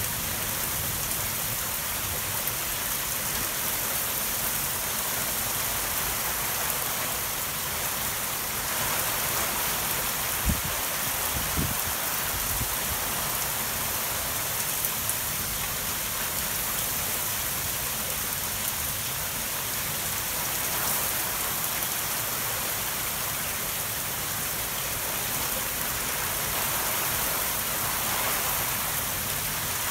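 Torrential rain falling steadily, a dense even hiss of rain on the street, lawns and roofs. Two brief knocks about a third of the way through.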